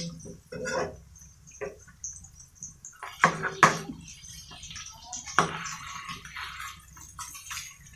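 Slotted metal spatula scraping and knocking against a black wok-style pan while meat slices are turned in a little oil over a gas flame, with a light sizzle. Three sharp knocks, two close together about three seconds in and one more a couple of seconds later, are the loudest sounds.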